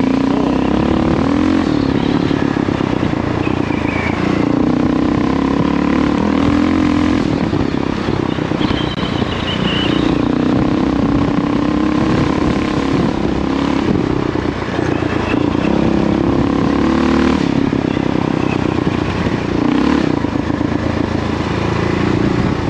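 Kawasaki KLR650 single-cylinder four-stroke dirt bike engine running under way, its pitch dropping and climbing again several times as the throttle is rolled off and opened.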